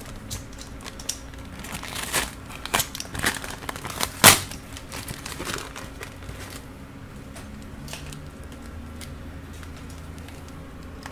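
Plastic packaging crinkling and crackling as a small package is opened by hand, with one sharp, louder crackle about four seconds in. The handling grows quieter and sparser in the last few seconds.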